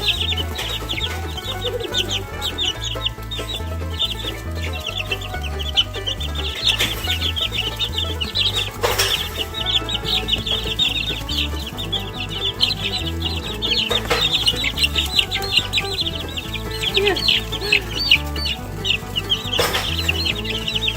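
Two-week-old Barred Rock chicks peeping nonstop in a dense run of rapid high chirps, worked up while scrambling for cooked egg. Background music with a steady bass line plays under them, and a few sharp taps stand out.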